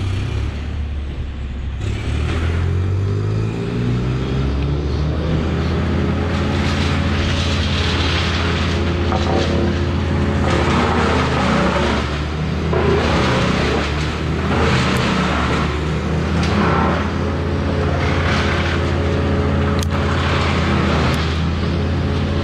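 A large engine running under throttle, its pitch rising about two seconds in and then holding steady, with repeated surges of rushing noise every second or two.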